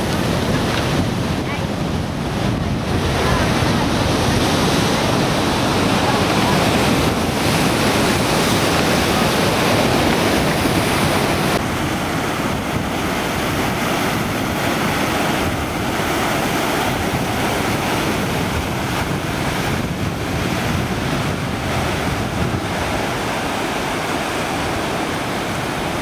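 Steady surf: waves breaking and washing over rocks along the shore, with wind on the microphone. The sound shifts abruptly about twelve seconds in.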